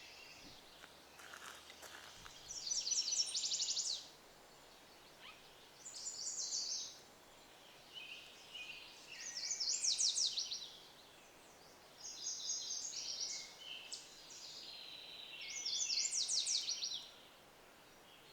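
A songbird singing short phrases of fast trilled notes, about six phrases, each a second or so long, repeated every two to three seconds.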